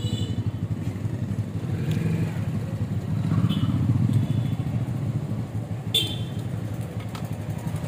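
A small engine idling steadily, with a low throbbing hum. A few light clinks of glassware, the clearest about six seconds in.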